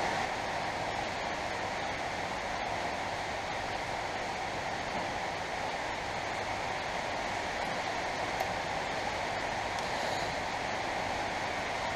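Steady heavy rain on the garage roof, heard from inside as an even hiss that does not let up.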